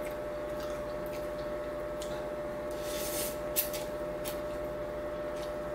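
Instant noodles being slurped from a bowl with chopsticks: a short slurp about three seconds in and a few soft clicks from eating, over a steady faint hum.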